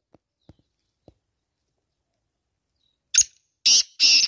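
Black francolin calling: after a few faint ticks, a sharp note about three seconds in, then two loud, scratchy notes in quick succession, the start of its call.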